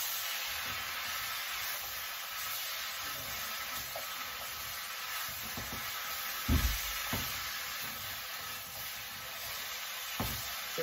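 Sliced mushrooms and carrots sizzling steadily in a hot wok as a spatula stirs them, with a few dull knocks of the spatula against the pan. The loudest knock comes about two-thirds of the way through.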